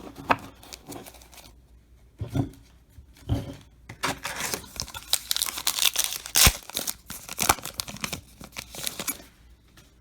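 A trading-card pack wrapper being torn open and crinkled. There are a few short rips early on, then a dense stretch of crinkling and tearing from about four seconds in until near the end.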